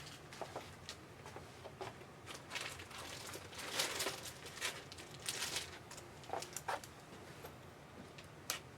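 Trading cards and their plastic holders being handled: scattered rustles, slides and light clicks, busiest in the middle.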